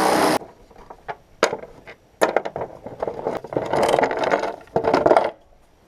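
A steady running sound cuts off just after the start. It is followed by irregular knocks, clicks and scrapes of metal tools and parts being handled during clutch work on a car.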